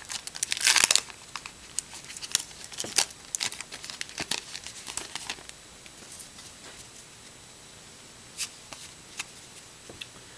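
Plastic wrapper of a Topps baseball card pack being torn open and crinkled. It is loudest in the first second, then softer rustles and crackles follow for a few seconds, and a few faint ticks come near the end.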